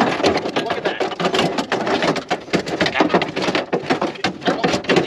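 Metal window regulator being worked into the inner panel of a Chevy Silverado door, knocking and rattling against the sheet metal in a busy, irregular run of clicks and clanks.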